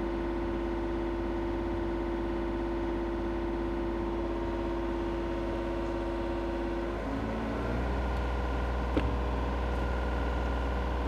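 John Deere 35G mini excavator's diesel engine running steadily. About seven seconds in the sound changes: a steady hum drops out and the engine settles into a deeper rumble. A single click follows about two seconds later.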